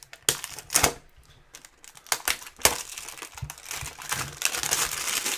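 Trading card pack wrappers being torn open and handled: scattered sharp clicks and taps, turning into denser crinkling about halfway through.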